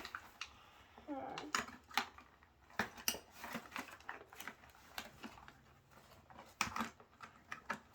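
Toy packaging being opened by hand: an irregular series of sharp clicks, snips and crinkles of plastic and cardboard as the doll is worked free of its box.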